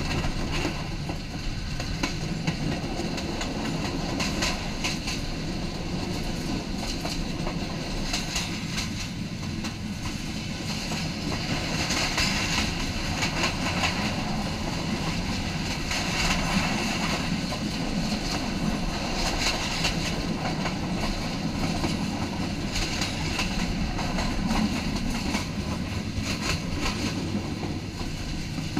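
Passenger train running at speed, heard from on board. A steady rumble with its wheels clicking and rattling over the track, louder in several stretches.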